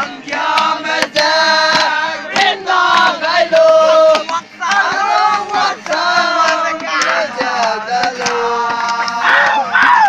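A group of young men singing a song together loudly, many voices at once holding long notes.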